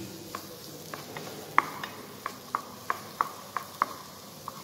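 Wooden spatula stirring diced vegetables in a small frying pan, knocking sharply against the pan a couple of times a second over a faint steady hiss.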